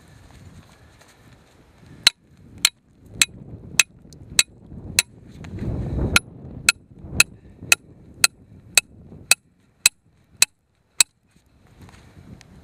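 A hammer driving a metal trap stake into the ground: about sixteen sharp strikes at roughly two a second, with a short pause midway, stopping near the end.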